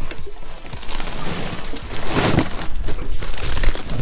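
Plastic ice bag crinkling and ice crunching as the bag is lifted off the catch, with a louder rustle about two seconds in.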